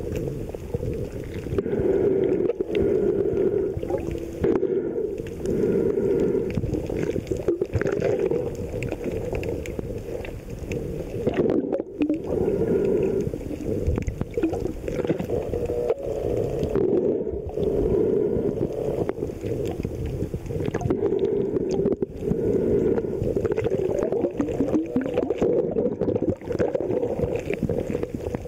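Muffled underwater noise picked up by a camera under water: a steady low drone that swells and dips every few seconds, with scattered small clicks and gurgles.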